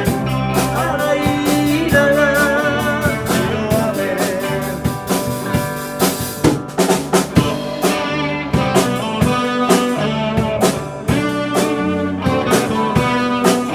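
Band playing an instrumental break: a guitar line over drum kit and bass, with steady drum hits throughout.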